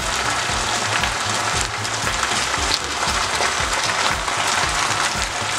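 Pork ribs in barbecue sauce sizzling in a frying pan over a gas burner: a dense, steady crackle.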